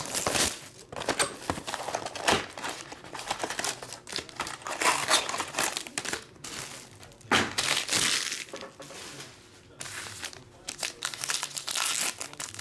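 Plastic wrapping and pack wrappers of an XR football trading card box being crinkled and torn open by hand: an irregular crackling that comes in bursts and eases off for a moment near the middle.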